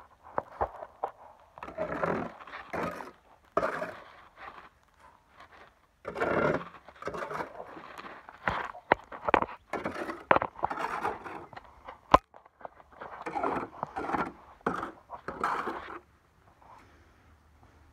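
Shovel scraping and scooping wet concrete out of a wheelbarrow in repeated, irregular strokes, with one sharp clack partway through.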